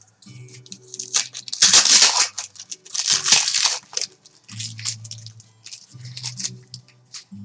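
A trading-card pack's wrapper torn open and crinkled by hand, with two loud rips about one and a half and three seconds in.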